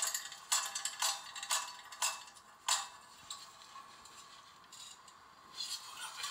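Regular sharp clicks, about two a second, which stop for a few seconds in the middle and start again near the end.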